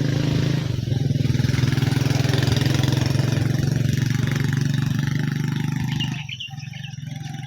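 A motor engine running steadily close by, with a level, unchanging hum. It drops away sharply about six seconds in.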